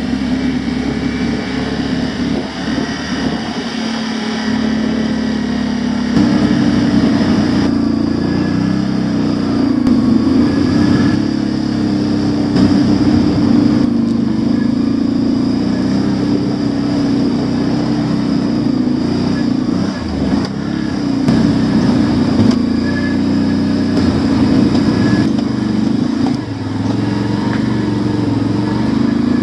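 Automatic ATV's engine running while riding a trail, close to the machine. About six seconds in it is throttled up and runs louder and a little higher, then holds steady with small rises and dips.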